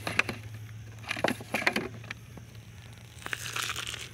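Thin clear plastic jar crinkling and scraping on gravel as it is handled and laid down on the road, in three short crackly clusters.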